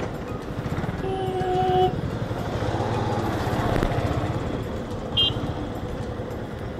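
Motorcycle engine running at low speed in town traffic, heard through a helmet-mounted microphone. A horn sounds for about a second, starting about a second in, and a short high beep comes about five seconds in.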